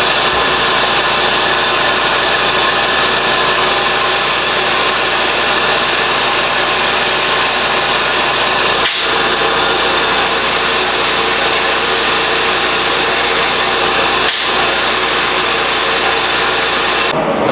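Sandblaster blasting degreased engine accessory parts: a loud, steady hiss of air and abrasive, broken by two very short pauses, one about halfway through and one near three-quarters of the way.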